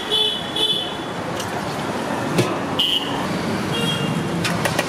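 Steady street traffic noise, with a few short high-pitched beeps and several sharp clinks of steel utensils, the last clinks coming close together near the end.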